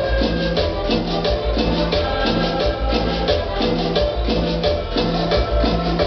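Cumbia music played loud over a dance-hall sound system, with a bass note repeating about every two-thirds of a second under a busy rattle of shaker-like percussion.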